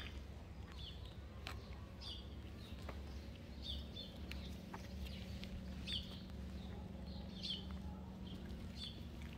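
Small birds chirping, with short high calls repeating about every second. A low steady rumble runs underneath.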